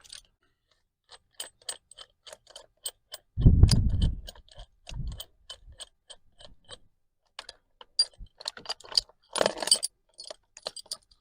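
Ratchet wrench clicking at about three or four clicks a second as it turns the forcing screw of a three-jaw puller on a steering wheel. A heavy thud comes about three and a half seconds in.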